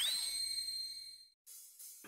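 Editing sound effect: a quick rising sweep into a high, shimmering cymbal-like ringing tone that fades over about a second and then cuts off abruptly.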